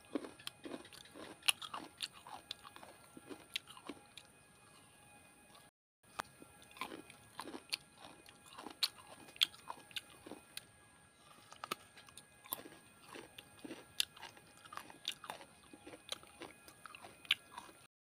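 Close-up chewing of fresh coconut flesh: many irregular wet crunches and bites. The sound cuts out briefly about six seconds in.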